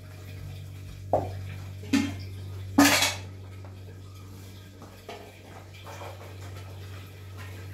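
Metal cookware clattering: a steel pot, pan and lid being set down and knocked together, with three sharp clanks in the first three seconds, the third the loudest and briefly ringing, then a couple of lighter knocks. A steady low hum runs underneath.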